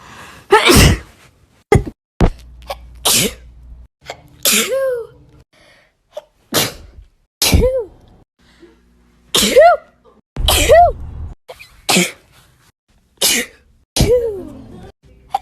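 A young woman sneezing over and over, about a dozen sneezes roughly a second or so apart. Many end in a voiced 'choo' that falls in pitch.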